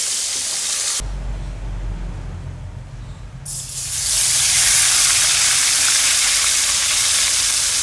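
Fish frying in hot oil hisses for about a second, then after a short quieter stretch with a low hum, ground green chili paste for sambal is tipped into the hot oil in a frying pan and sizzles loudly and steadily.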